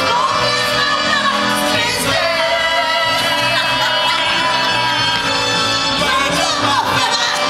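Singers performing a song from a stage musical over a full musical accompaniment.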